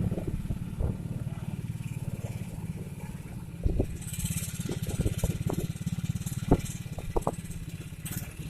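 Motorcycle engine running steadily while riding, with a few sharp knocks from bumps along the way.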